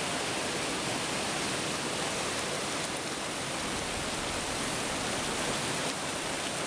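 Steady rushing of a mountain stream, an even noise with no breaks.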